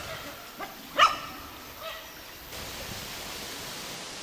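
A dog barking three times, with a short bark, then the loudest bark about a second in, then a fainter one near two seconds.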